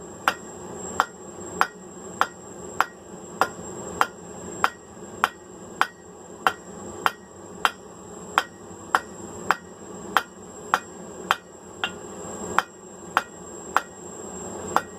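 Blacksmith's hand hammer striking hot rebar on the anvil in a steady rhythm, about three blows every two seconds, drawing the end out to a long tapered point.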